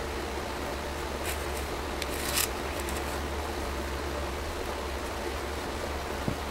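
Brief scraping rustles about two seconds in as a metal hydraulic pump housing section is handled and set down on cardboard, over a steady low background hum, with a small click near the end.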